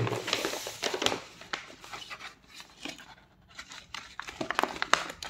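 Brown kraft-paper mailer bag rustling and crinkling as it is handled and turned over by hand, with irregular light crackles that grow busier near the end.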